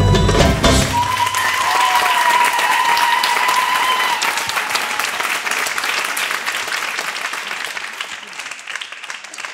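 Audience applauding and cheering as the Middle Eastern drum music cuts off just under a second in. A long, high, held tone from someone in the crowd rises over the clapping for a few seconds, and the applause then fades out toward the end.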